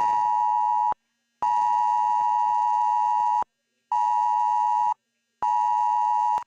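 Mobile phone's emergency alert attention tone from a Cell Broadcast test, a loud two-pitch tone near 1 kHz sounding in a fixed pattern. A tone cuts off about a second in, then after short gaps come a two-second tone and two one-second tones, and a new long tone starts at the very end.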